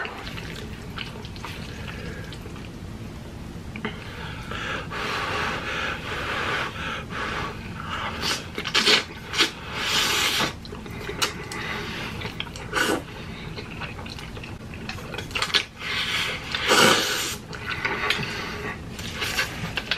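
Noodle slurping and chewing, close to the microphone: repeated wet hissing slurps of thick spicy instant noodles, with the loudest ones around the middle and near the end.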